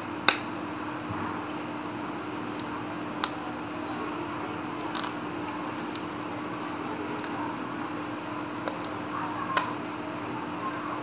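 Plastic earphone packaging being handled: scattered sharp clicks and light crinkling as a cardboard box and plastic blister card are moved against a clear plastic bag, the loudest click about a third of a second in. A steady low hum runs underneath.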